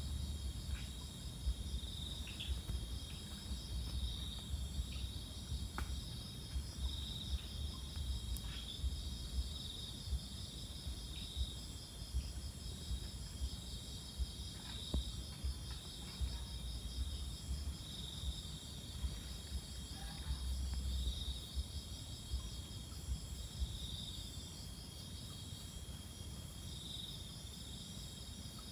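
Crickets and other night insects chirping steadily in a high, overlapping trill, with a louder chirp repeating about every second or so. Under it is a low rumble with scattered faint clicks.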